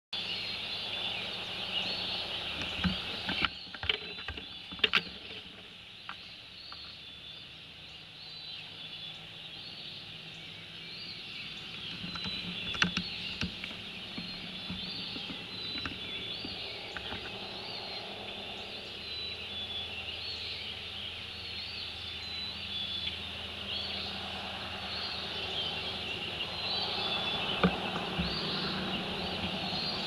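Outdoor bird sounds with a short high chirp repeating about once a second, and a few sharp clicks. From about two-thirds of the way in, the low rumble of an approaching jet aircraft builds and grows louder toward the end.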